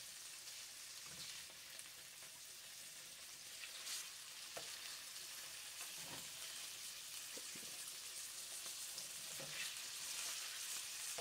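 Fish fillets sizzling steadily in melted butter in a nonstick frying pan, with a few soft taps and scrapes as a spatula moves the pieces.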